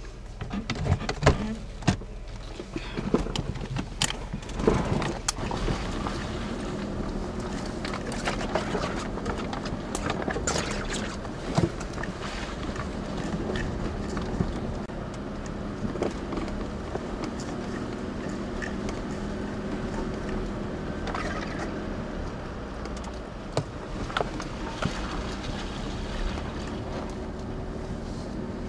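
Four-wheel-drive vehicle's engine running at low speed, heard from inside the cab, as it crawls over a rough dirt trail. The body rattles and knocks over the bumps, with the sharpest jolts in the first five seconds.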